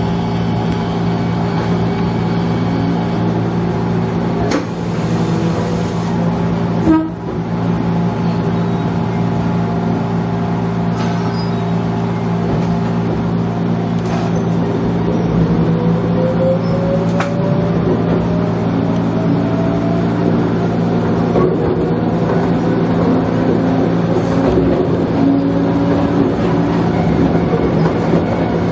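Electric train pulling away and running, its motors giving a whine that slowly rises in pitch as it gathers speed, over steady running noise. A brief hiss about five seconds in and a sharp knock about seven seconds in.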